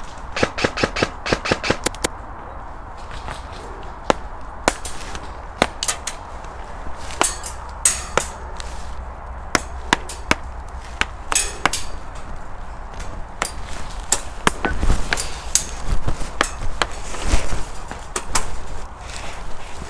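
Airsoft gunfire and BB hits: a quick run of sharp cracks in the first two seconds, then scattered single cracks and short bursts.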